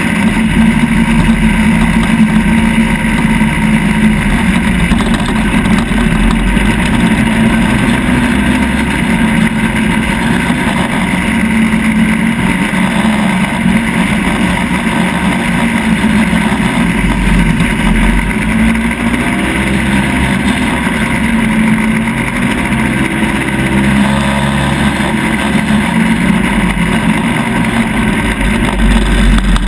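The engine of an off-road vehicle running steadily under way, heard from on board, with wind rumbling on the microphone.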